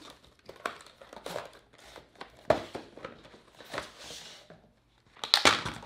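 Cardboard and plastic packaging being handled: a cardboard box pulled open and a clear plastic tray taken out, with scattered taps, scrapes and crinkles. Louder knocks come about two and a half seconds in and near the end.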